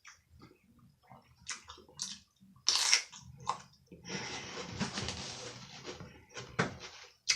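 Close-up eating sounds: small mouth clicks and chewing, a sharp loud crackle just before three seconds in, and a steady rustling hiss lasting about two seconds from four seconds in.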